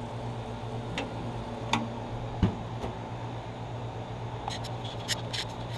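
Cheddar bratwursts sizzling on a hot grill, fat bursting and dripping: a steady hiss over a low hum, with scattered pops and ticks, one heavier knock about halfway through and a cluster of ticks near the end.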